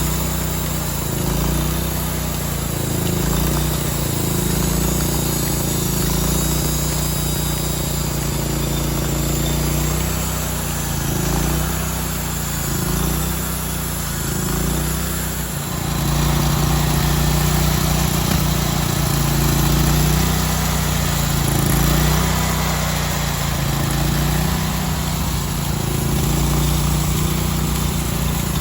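Engine of a homemade sawmill running under load, its pitch dipping and recovering; it gets louder about halfway through.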